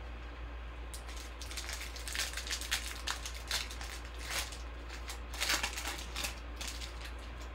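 Foil wrapper of a Panini Prizm basketball card pack crinkling and tearing as it is ripped open by hand, in bursts of crackling from about a second in until near the end.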